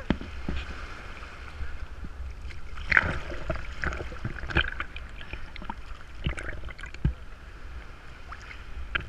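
Sea water sloshing and splashing around a waterproof action camera held at the surface among waves, over a steady low rumble, with scattered sharp drops and splashes and a louder splash about three seconds in.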